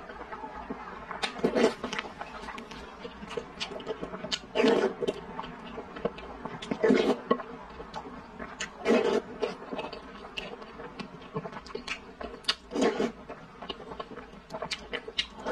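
Close-miked eating sounds from purple rice milk-tea soup: a louder slurp from the spoon every two seconds or so, amid many small wet chewing and mouth clicks.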